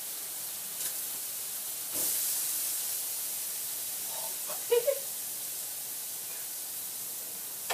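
Chicken sizzling on a grill: a steady hiss that swells about two seconds in.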